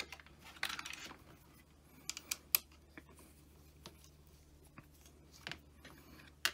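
Scattered light clicks and taps of a steel Allen key and hard plastic parts being handled, as the key is fitted to a screw on a 3D-printed spindle mount, over a faint steady low hum.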